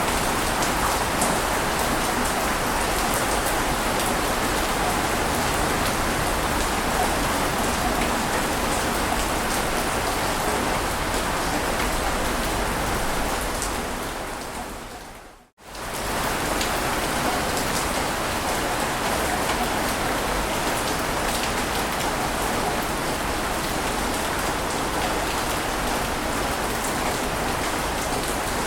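Steady hiss of water noise, ocean surf or rain-like wash with a fine crackle. It fades down to a moment of silence about halfway through and quickly fades back in.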